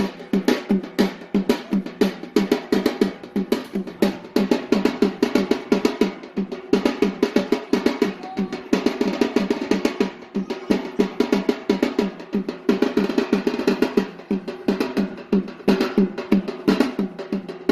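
Traditional Yemeni drums beating a fast, steady rhythm of many strokes a second for the bara' dance.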